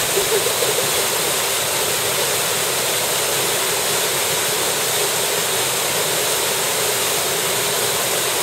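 Small stream's water rushing in a steady, even rush.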